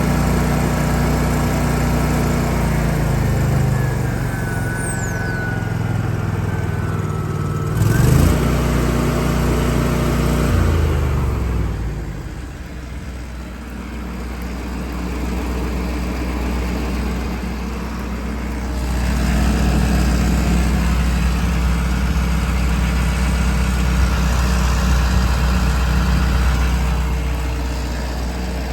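Engine running, stepping down in speed a few times, with a sharp knock about eight seconds in. It then runs quieter for several seconds before picking up again.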